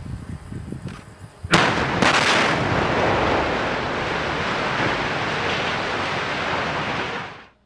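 Explosive demolition charges go off about a second and a half in with a sharp, loud blast. Several seconds of continuous loud rushing noise follow as the steel boiler structure of a steam power station comes down, then the sound fades out quickly near the end.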